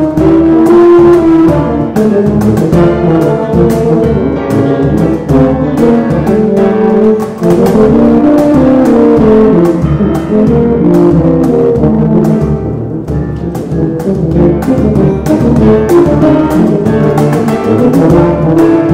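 Two tubas playing together with piano and cajon accompaniment, the cajon striking a steady beat under the brass lines.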